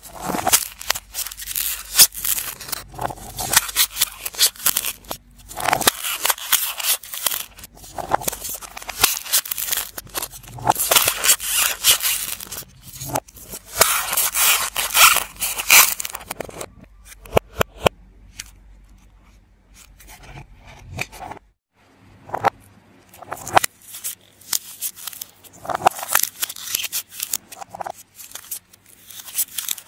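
Scissors cutting through dried clay: repeated snips with crackling and crunching as the clay breaks apart, dropping away to a quieter stretch about two-thirds through before the cutting resumes.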